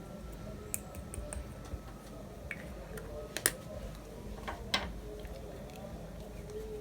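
Scattered small sharp clicks and taps, about eight of them at irregular spacing, from handling a plastic pot of pink glitter as it is added to the slime.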